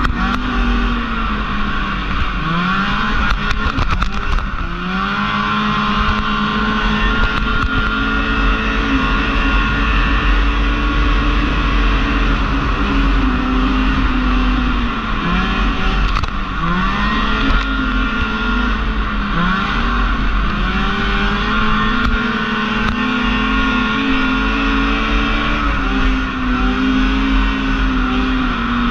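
Racing snowmobile engine heard from on board, running hard at high revs; its pitch dips and climbs again many times as the throttle is eased and reopened.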